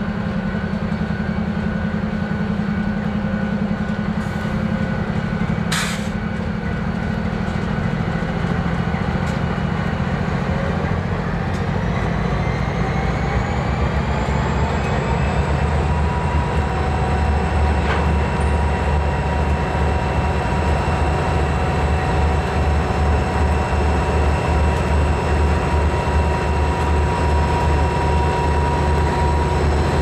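Diesel-electric freight locomotives running past slowly, their diesel engines making a heavy steady drone. About a third of the way in, a whine rises in pitch over several seconds and then holds steady, while the low engine sound grows heavier. There is a sharp click about six seconds in.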